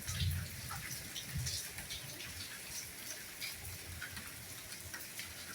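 Steady rainfall, with single drops landing close by in scattered, irregular ticks over the steady hiss. Two soft low thuds come in the first second and a half.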